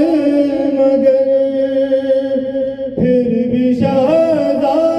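A male reciter chanting a soz-o-salam, an Urdu Shia elegy, unaccompanied, drawing out long wavering notes. He breaks briefly for breath just before three seconds in, then his voice climbs higher near four seconds.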